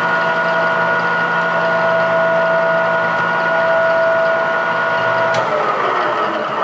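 Goodway GW1660 gap-bed lathe running under power, its spindle drive giving a steady gear whine of several held tones. About five seconds in the whine falls in pitch and fades as the spindle slows down.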